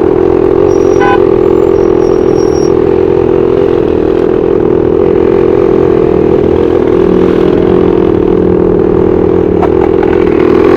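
Small CAG two-stroke engine on a motorized mountain bike running steadily at an even speed.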